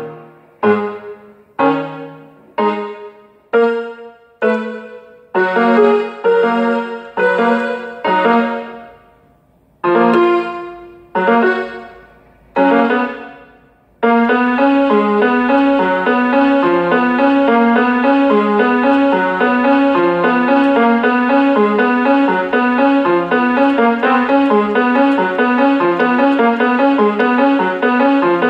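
Instrumental piano music. Single chords are struck one after another and each dies away, with a short pause near the middle; then, about halfway through, a fast unbroken run of notes starts suddenly and carries on.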